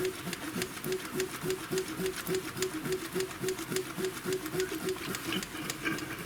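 Freshly rebuilt VAZ 2106 four-cylinder engine running right after catching on its first start, with an even, rhythmic mechanical clatter of about three to four beats a second and a fast ticking over it.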